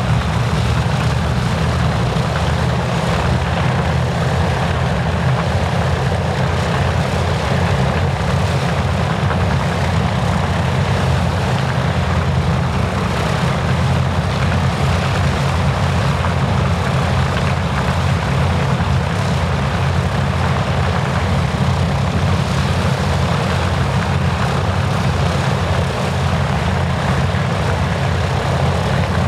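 North American B-25 Mitchell's twin Wright R-2600 radial engines idling steadily on the ground, both propellers turning.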